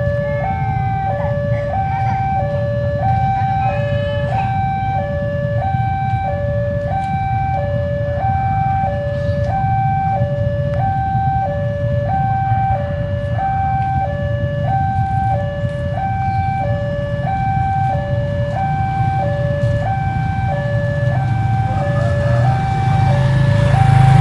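Railway level-crossing warning alarm sounding its two-tone electronic signal, alternating a high and a low note about every two-thirds of a second, which warns that a train is approaching. A low rumble runs underneath and grows louder near the end.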